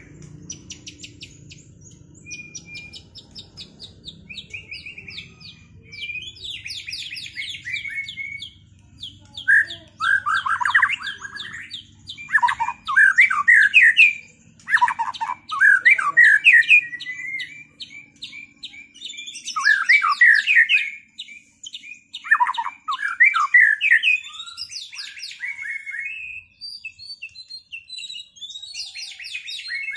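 White-rumped shamas singing against each other in a duel: a long, varied song of rapid trills and chattering notes, with loud whistled phrases sweeping steeply downward through the middle.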